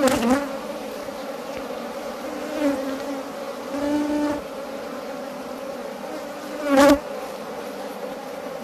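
Honeybees buzzing over an open hive frame: a steady, many-toned drone with a few louder swells, about a second apart at first and again near the end, as bees pass close.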